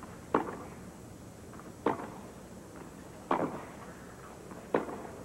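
Tennis ball struck back and forth by rackets in a baseline rally: four sharp hits, one about every one and a half seconds.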